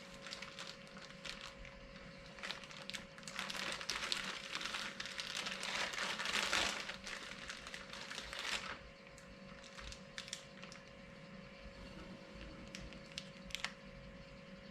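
Packaging being handled and crinkled, with a run of dense crackling and rustling for several seconds in the middle, then scattered clicks and light rustles, over a faint steady hum.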